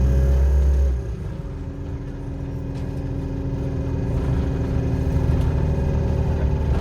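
Bus drivetrain droning, heard from inside the bus: a loud low drone with steady pitched tones that eases off about a second in, then builds again steadily. This is the horrible droning sound the bus is filmed for.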